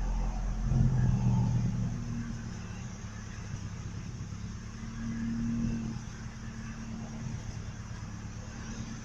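Truck engine idling roughly, briefly picking up about a second in and again around five seconds in. The owner thinks it is running out of gas and about to stall.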